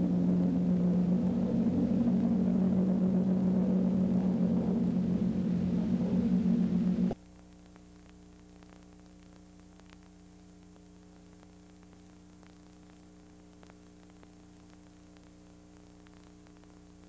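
A loud, steady low drone with a rumble beneath it cuts off abruptly about seven seconds in. What is left is a faint steady electrical hum and hiss with an occasional tiny click.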